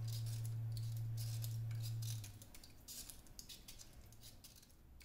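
Hand vegetable peeler scraping the skin off a sweet potato in short repeated strokes, about two or three a second. Underneath, a low steady hum stops about two seconds in.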